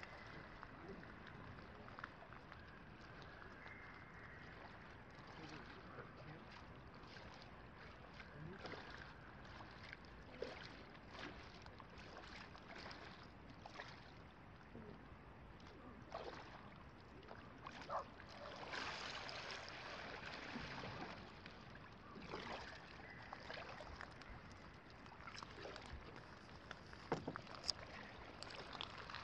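Faint paddle strokes and splashes from a homemade kayak paddled across calm water, growing louder near the end as the boat comes close.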